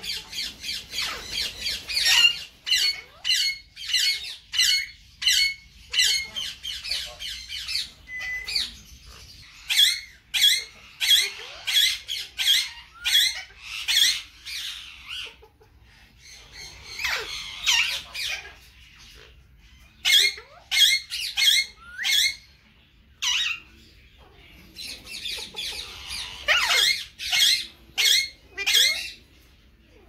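A flock of Alexandrine parakeets squawking: many short, harsh calls in quick runs, easing off briefly about halfway through and again near the three-quarter mark.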